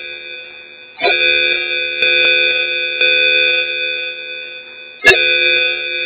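Electronic call chime sound effect: a sustained ringing tone of several pitches, struck sharply about a second in and again near the end, each strike fading slowly.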